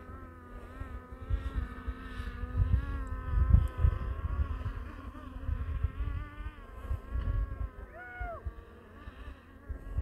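Multirotor camera drone's propellers whining, a stack of tones that wavers up and down as the drone manoeuvres, with a short falling tone near the end. Wind gusts rumble on the microphone underneath.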